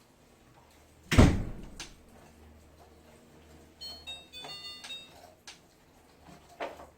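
A heavy thump about a second in, then a short run of electronic beep tones at changing pitches, and a lighter knock near the end.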